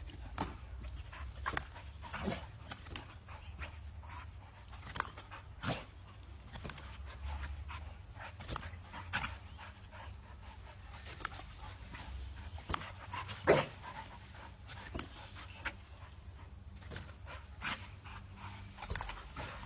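Two pit bulls panting as they jump and snap at a balloon, with scattered short sharp taps and snaps, the loudest about two-thirds of the way through, over a low steady rumble.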